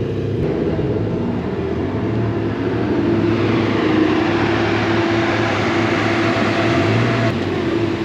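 Caterham 7 sports car's engine running at low speed in the open cockpit, a steady drone. A broad hiss joins about three seconds in and drops away about a second before the end.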